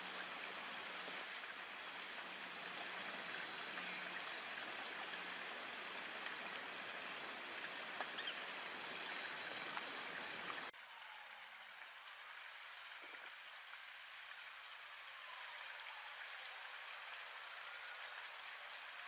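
Steady hiss of recording noise with no clear events. It drops to a quieter, thinner hiss abruptly about eleven seconds in.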